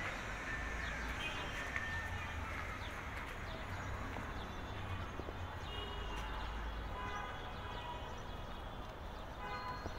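Steady outdoor city background: a low rumble with faint, scattered short high chirps and tones over it.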